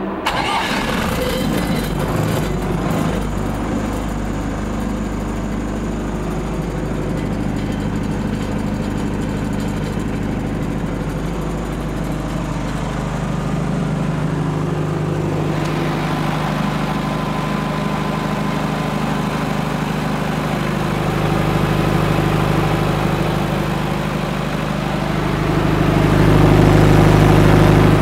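Akita GF3-32 32 kVA diesel generator's engine running at a steady speed, with a steady low hum; it gets louder for a couple of seconds near the end.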